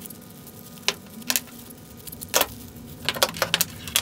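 Large scissors snipping open plastic bags, with plastic crinkling and the clinks of small steel lathe tool holders being unwrapped and handled. The sound is a string of sharp clicks and clinks, with several close together in the second half.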